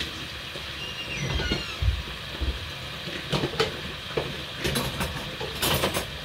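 Plantains frying in a pot of hot oil, a steady sizzle throughout, with several knocks and clatters of plastic cups and dishes being handled at a dish rack from about a second in.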